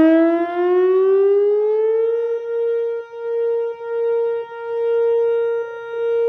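Outdoor tornado warning siren sounding in a test, starting loud, winding up in pitch for about two seconds, then holding one steady wailing tone. Its loudness dips and swells several times.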